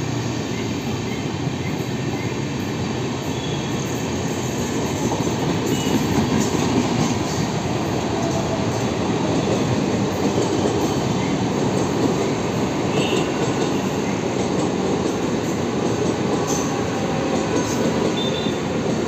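Passenger trains rolling past on the tracks below: the LHB coaches of an express, then a suburban EMU local. Wheels on rail make a steady, continuous rumble, with a few brief faint high squeals.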